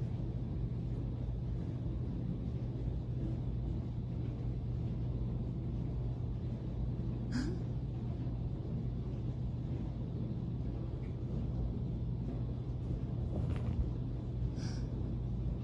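Steady low hum and rumble of room noise, with a few faint short taps or clicks about halfway through and near the end.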